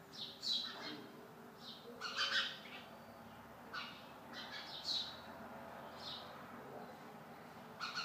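House sparrows chirping: short, sharp chirps in irregular clusters, loudest in the first second and again around two and five seconds in.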